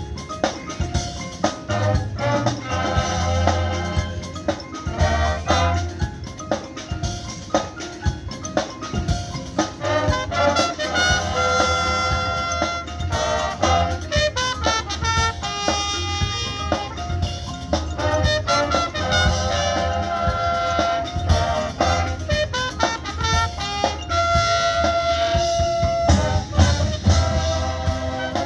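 High school marching band playing its field show: brass over a drumline, with mallet percussion from the front ensemble, continuous.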